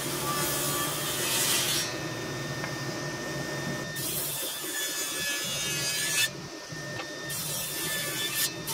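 Table saw resawing a walnut board on edge in repeated passes. The blade cuts in spells of rasping noise as the board is pushed in, with the saw still running between the cuts as the board is pulled back and fed again. Drying stress in the board pinches the kerf and binds the blade, so the kerf is recut over and over.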